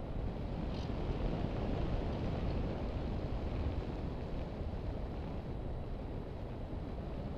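Steady wind rushing over a camera mounted on a ParkZone Radian RC glider in flight, with no motor tone.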